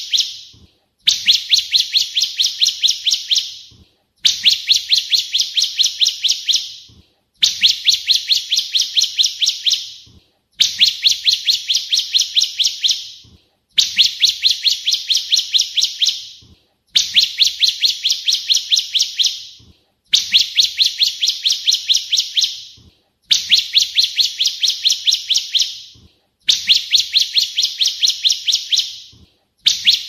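Bar-winged prinia (ciblek kristal) singing: high, rapid trains of repeated notes, about four a second. Each phrase lasts about two and a half seconds and fades at the end, and the phrases come again about every three seconds with short pauses between.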